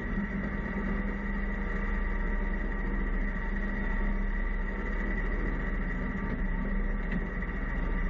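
Steady engine drone with a constant high whine above it, heard from inside the cab of the UHAC half-scale prototype amphibious vehicle as it moves.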